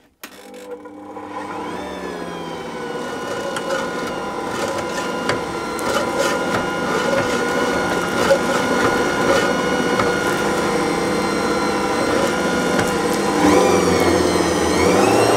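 Ankarsrum stand mixer's motor running as it turns the bowl, mixing water, sugar, yeast and oil together. The steady hum builds over the first couple of seconds, then rises in pitch and gets louder near the end as the speed goes up.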